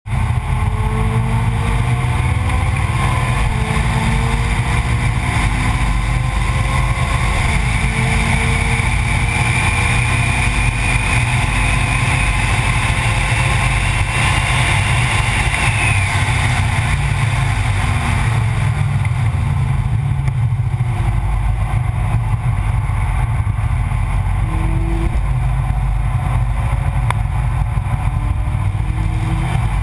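Onboard sound of a vehicle at speed on a race circuit. The engine revs climb and drop back at several gear changes in the first few seconds, then ease off about halfway through. A heavy low wind rumble runs under it all.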